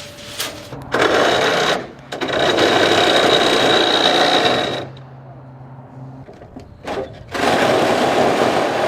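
Reciprocating saw (sawzall) cutting in three runs, starting and stopping abruptly, with a high whine in the longest run.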